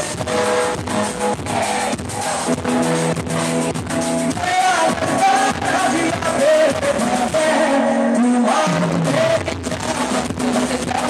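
Live band music with a man singing into a microphone over a steady beat, heard from among the crowd at a stage concert.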